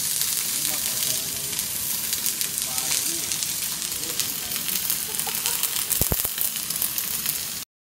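Flux-cored arc welding: the arc crackles and sizzles steadily. The sound cuts off abruptly near the end.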